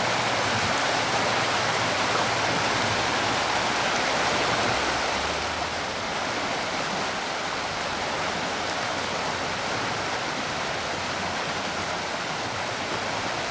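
Creek running high, rushing water as a steady hiss, easing slightly about five seconds in.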